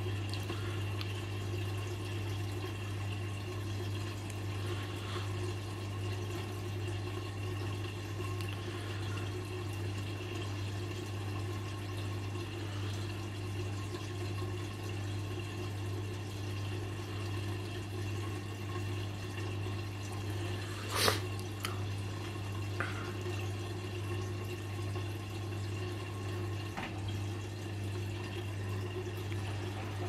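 Hoover DXOA69HC3B washing machine's drain pump running during its Clever Check self-test, a steady hum with water draining and trickling from the drum. One sharp click about two-thirds of the way through, followed by two fainter ones.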